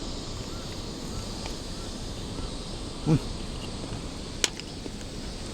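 Steady summer outdoor ambience with a faint high insect hum and small repeated chirps, a brief low sound about three seconds in, and a single sharp click, like a spoon against a dish, about four and a half seconds in.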